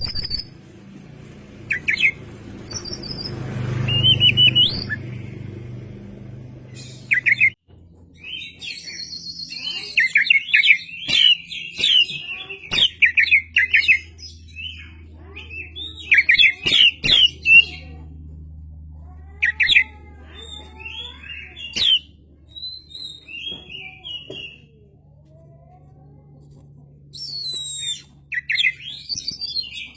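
Oriental magpie-robin singing in loud bursts of varied whistles and rapid chattering notes, over a steady low hum. For the first several seconds a rush of noise swells and then drops away.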